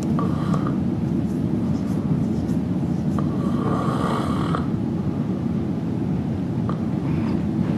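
An adult man snoring softly with his mouth open: a short snore at the start and a longer one about three seconds in. A steady low rumble runs underneath.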